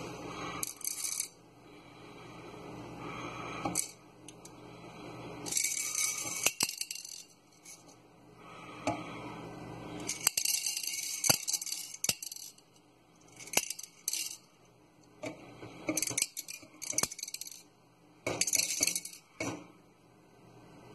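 Tiny round candy sprinkles poured from one clear cup into another, rattling in about seven short bursts with single clicks between them.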